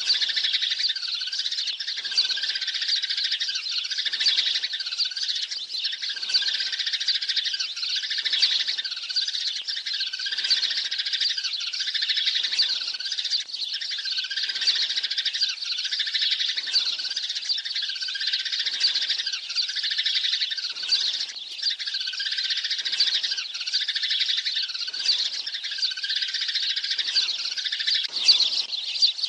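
A flock of sparrows chirping densely and without pause: a sparrow lure-call recording used to draw sparrows to a trap, with the same pattern repeating about every two seconds.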